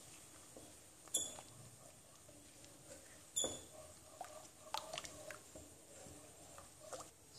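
Spatula stirring mango pulp in a nonstick pan: quiet stirring with two sharp knocks about a second and three and a half seconds in, then a run of smaller clicks and taps.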